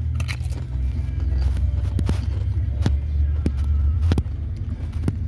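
Steady low rumble of a car interior on the move, with sharp crinkles and crunches from a bag of Flamin' Hot Doritos being opened and the chips eaten, the clearest about two, three and four seconds in.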